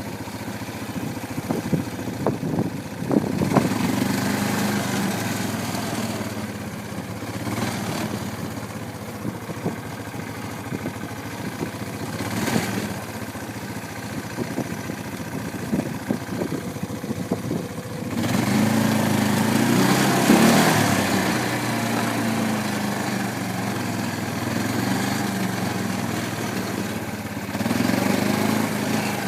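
A small engine running, its note rising and falling, with a louder stretch about two-thirds of the way through.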